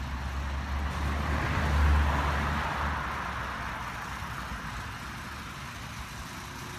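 A vehicle passes close by: a low rumble with a rushing sound swells to a peak about two seconds in, then fades away.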